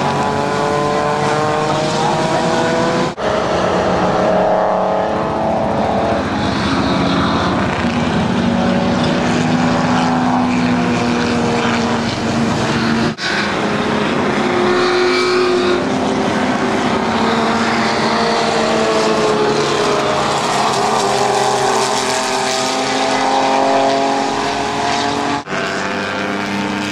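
Several race cars' engines running hard as they pass on a road course, several engine notes overlapping and rising and falling in pitch as the cars go by and change gear. The sound is broken by three very brief dropouts.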